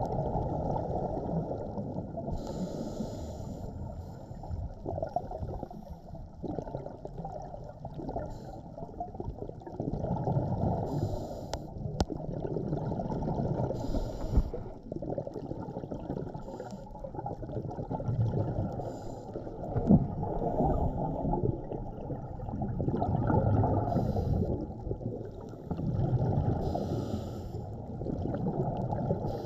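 Scuba diver breathing through a regulator underwater: short hisses of inhalation and a low bubbling rush on each exhale, repeating every few seconds.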